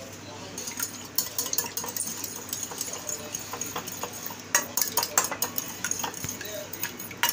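Yogurt being beaten with a spoon in a ceramic bowl: quick, irregular clinks and scrapes of the spoon against the bowl, starting about half a second in.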